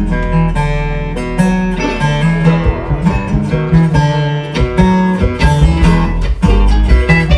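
Bluegrass band playing an instrumental passage: acoustic guitar and mandolin picking over a steady upright bass line.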